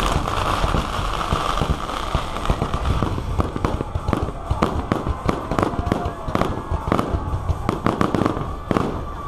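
A fireworks display of aerial shells and comets going off in a rapid run of bangs and crackles. The bangs come thicker and sharper from about three seconds in.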